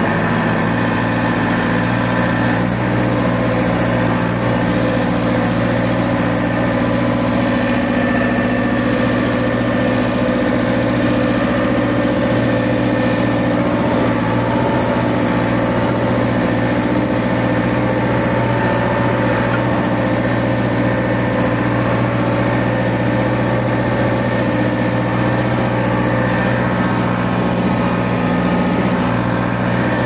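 Farm tractor engine running steadily while harrowing, heard close up from the driver's seat next to the exhaust stack.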